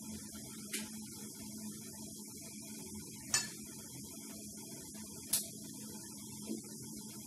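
Hands rubbing and separating steamed vermicelli in a dish, with faint rustling and three short knocks or clicks. A steady low hum lies under it all.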